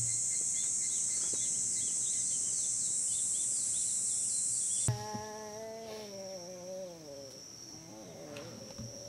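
Insects shrilling: a loud, steady high-pitched drone with quick repeating chirps over it. About five seconds in it cuts to a quieter, steady high insect trill, and a long call slides down in pitch over about two seconds.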